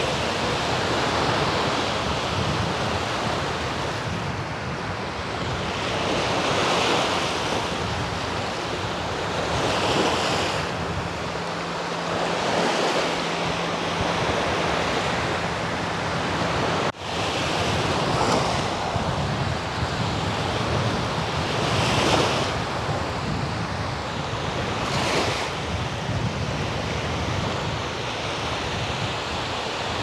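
Black Sea surf: small waves breaking on the shore, swelling and falling back every few seconds, with wind buffeting the microphone.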